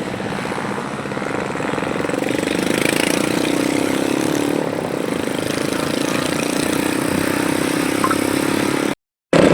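Motorcycle engine running steadily, a little louder from about two seconds in; the sound cuts off suddenly near the end.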